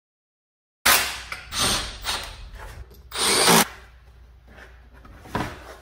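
Plastic underbody panel of a Tesla being worked loose and pulled down from the car's underside, scraping and rattling against the body in several bursts. The loudest burst comes a little past three seconds in, and a shorter one comes near the end.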